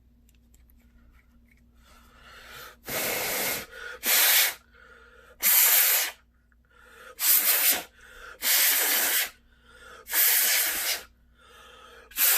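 A run of about seven short hissing spray blasts, each under a second, with brief pauses between, typical of an air duster or spray aimed at a wet phone circuit board to clean and dry it.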